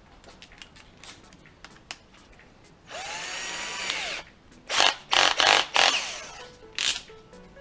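Parkside cordless drill/driver's motor spinning up at low speed, running for about a second and winding down. It is followed by several loud rattling bursts as the chuck is worked on a freshly fitted bit.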